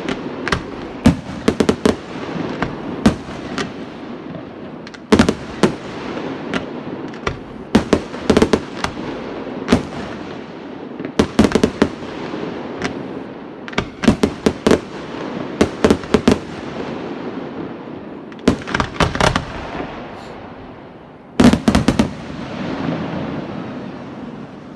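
Aerial fireworks shells bursting: sharp bangs in quick clusters of two to five, every second or two, with a rolling echo between them. The last cluster comes near the end, and after it the echo dies away.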